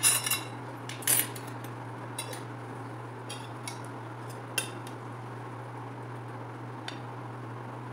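Metal cutlery clinking against ceramic: a fork and serving spoon knocking on a plate and serving dish, a handful of light clinks, the loudest at the start and about a second in, then sparser ones. A faint steady low hum runs underneath.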